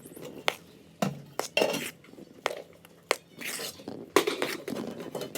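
Dry rice flour and spices being stirred together in a bowl, with irregular clinks and scrapes against the bowl.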